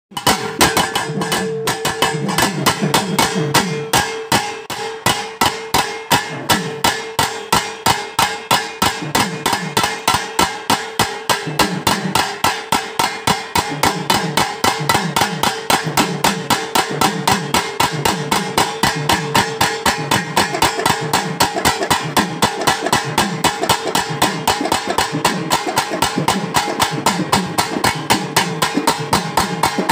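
A group of pambai drummers, paired cylindrical Tamil folk drums struck with sticks, playing together in a fast, steady rhythm of about four to five strokes a second, with a steady tone held underneath.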